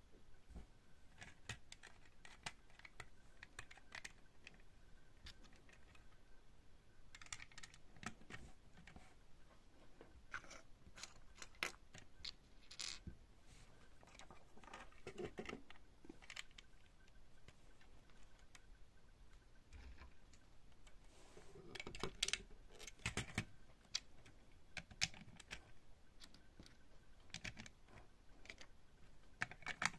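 Plastic LEGO bricks clicking and rattling as pieces are handled and pressed together: faint, irregular runs of light clicks and taps, loudest a little past two thirds of the way through.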